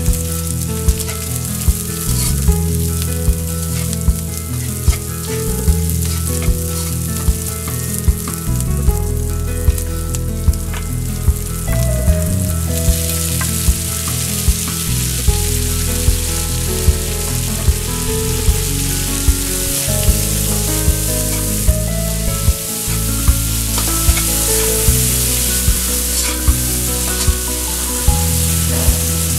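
Chopped onions and garlic sizzling in oil in a non-stick wok. The frying hiss grows brighter about halfway through, once sliced tomatoes are added and stirred in with a spatula. Background music with a steady beat plays underneath.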